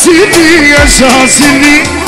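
Live band music with electric guitar and keyboards: a loud, ornamented lead melody that bends up and down in pitch over a steady drum beat.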